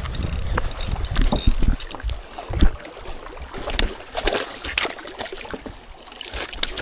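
Wind rumbling on the microphone, with scattered clicks and knocks.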